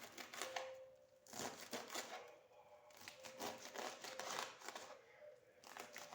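Rustling and crinkling in several bursts a second or two long, over a faint steady hum.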